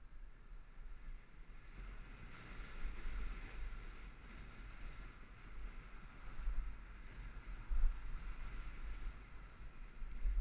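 Wind buffeting the microphone of a moving action camera, a steady low rumble with gusts, while a pickup truck's tyre and engine noise swells and fades as it passes in the opposite lane about halfway through.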